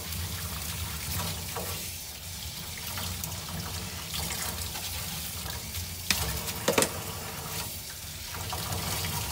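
Kitchen tap running into a sink while a metal strainer is rinsed and scrubbed under the stream. A couple of sharp knocks come about six to seven seconds in.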